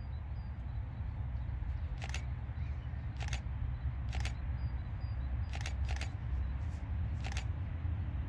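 Low steady rumble of a convoy of diesel locomotives approaching from a distance, with about seven sharp clicks over it.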